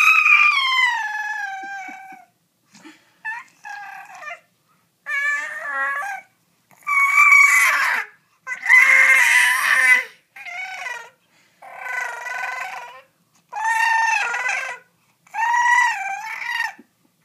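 Infant's high-pitched cooing and squealing, a string of about ten separate calls, each a second or two long with short pauses between. The first call is the longest and glides down in pitch.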